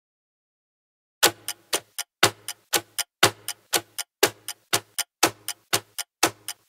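Ticking countdown sound effect: sharp, clock-like ticks at about four a second, some louder than others. It starts about a second in and cuts off suddenly at the end.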